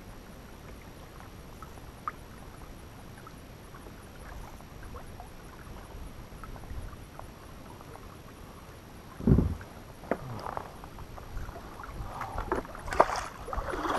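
Water lapping quietly against a plastic kayak hull, with small scattered knocks. A heavy low thump on the hull comes about nine seconds in, and a few more clunks and a sharp click follow near the end as a paddle is picked up.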